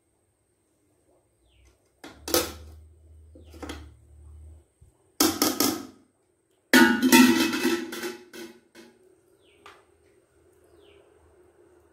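A metal slotted spoon scraping and knocking against a metal pot of rice and chicken, in several short bursts, the loudest from about seven to nine seconds in. Birds chirp faintly throughout.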